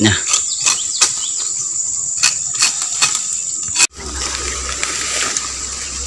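Steady high-pitched buzz of insects, with scattered clicks and rustles. About four seconds in the sound cuts out abruptly and returns with a low rumble underneath and the buzz fainter.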